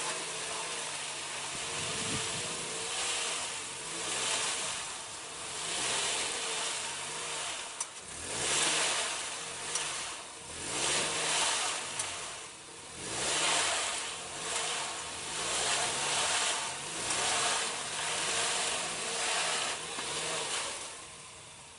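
Off-road vehicle's engine revving up and down again and again while its tyres spin on loose ground, with a rushing hiss of spinning tyres that swells with each rev. From about 8 s in the revs come in an even rhythm, roughly one every second and a half.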